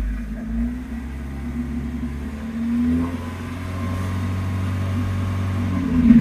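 Opel Astra Cabrio petrol engine at operating temperature, idling and then held at a higher speed from about three seconds in, dropping back near the end. There is no hydraulic lifter tapping: the engine now runs without it after an oil additive.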